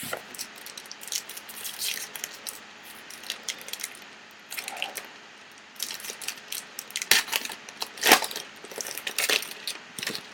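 Trading card packs and cards being handled: wrappers crinkling and cards sliding and clicking against each other, a busy run of short crackles with a few louder snaps about seven and eight seconds in.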